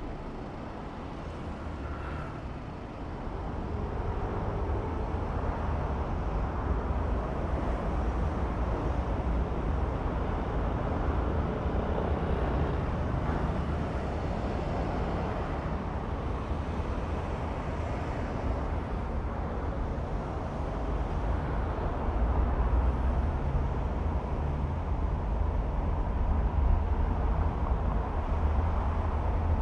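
A car driving through city traffic, with steady road and engine noise heaviest in the low rumble. It gets louder about three seconds in and again after about twenty seconds.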